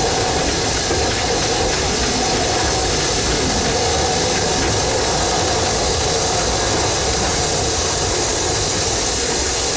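Hunslet narrow-gauge steam locomotive running with a train, heard from the coach just behind it: a steady, loud hiss of steam and exhaust mixed with the running noise of the train, with no distinct exhaust beats.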